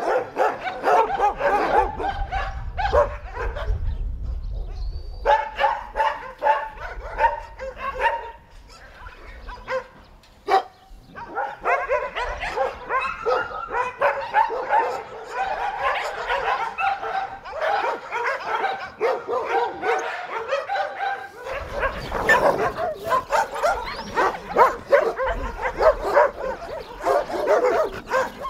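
A pack of dogs barking and yipping together, many voices overlapping, with a brief lull about a third of the way in.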